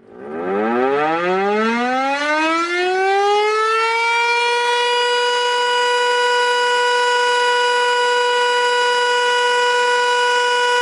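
A loud siren starting up, its pitch rising over about four seconds, then holding one steady high tone.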